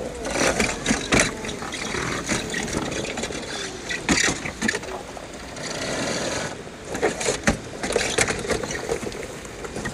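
1/10-scale RC rock crawler (Injora SCX10 chassis) clambering over rocks: irregular scrapes, clicks and knocks of tyres and chassis on stone.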